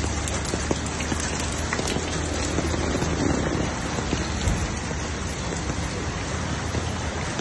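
Heavy rain pouring steadily onto a flooded street: a dense, even hiss with scattered drop ticks.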